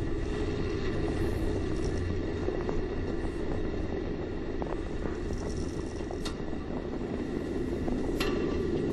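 Steady low rumble of air rushing past a space shuttle solid rocket booster as it descends under its three main parachutes. A couple of sharp clicks come near the end.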